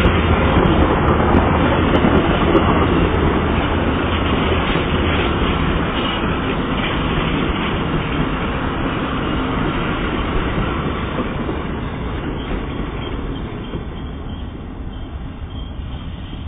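Amtrak passenger train's cars rolling past at speed: a steady rumble of wheels on rail that slowly fades as the last car pulls away.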